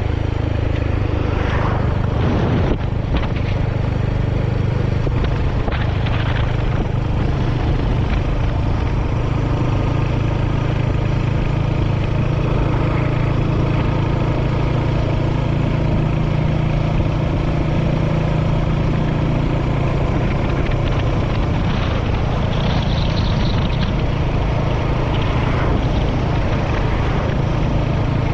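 Royal Enfield Hunter 350's single-cylinder engine running at a steady note as the motorcycle is ridden, picked up by a camera mounted on the bike.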